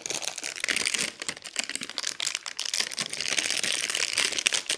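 Thin plastic packaging crinkling and crackling continuously as small plastic slime tubs are handled and pulled out of it.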